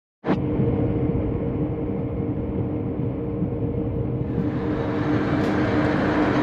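Axelson engine lathe running, a steady machine whir with two steady tones from its gear train. It starts abruptly just after the beginning and gets louder and brighter about four seconds in.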